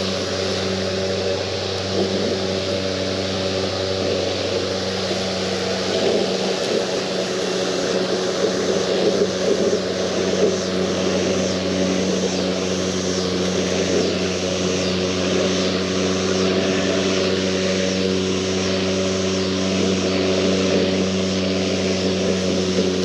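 EGO Power+ Touch Drive 56 V battery lawn mower running under way, a steady fan-like hum with the whir of its spinning blade. About eight seconds in, a faint, evenly pulsing high buzz joins it.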